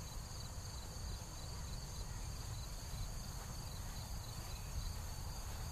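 Steady high-pitched shrilling of a summer insect chorus, over a low fluctuating rumble.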